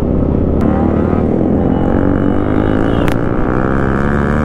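Yamaha MT-15's single-cylinder engine on the stock exhaust, running on the move with wind on the microphone; its pitch climbs as the bike accelerates. Two sharp clicks come about half a second and about three seconds in.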